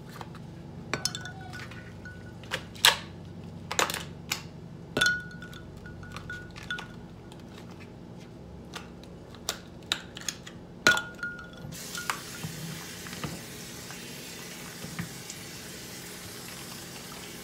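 Ice cubes clinking into and against a cup: a string of sharp clinks, some with a short ringing tone after them. About twelve seconds in, a kitchen tap starts running steadily.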